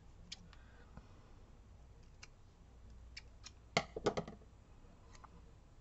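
Faint scattered clicks and small taps from hands working paper stickers apart and picking up a pair of scissors on a cutting mat, with a quick cluster of louder clicks about four seconds in.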